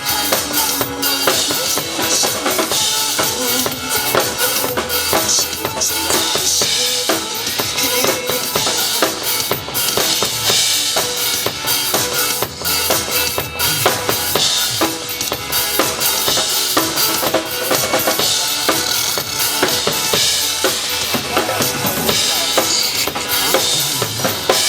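A drum kit played live, with bass drum, snare and cymbals in a steady driving beat over a pitched backing track of recorded music.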